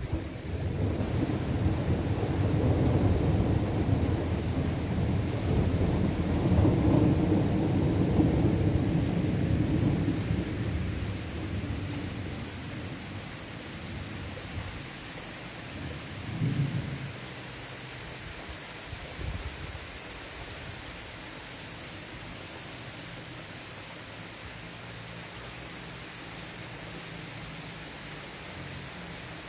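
Thunder rumbling loudly for about ten seconds and slowly fading, with a short second rumble about halfway through, over steady rain.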